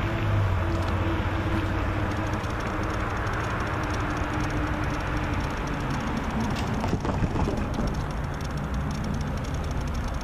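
Steady rumble with the low hum of diesel locomotives in the distance; the hum fades about halfway through, and a few faint clicks come near the end.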